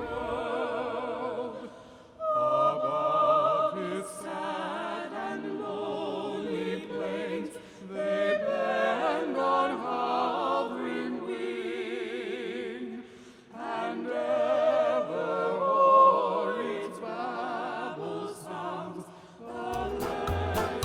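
A group of carolers singing a Christmas carol in several voices. They sing in phrases, with short breaks between them.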